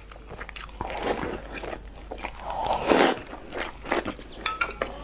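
Close-miked eating: biting and chewing a fried, sauce-soaked piece of food, with a string of wet mouth clicks and a louder crunchy bite about three seconds in.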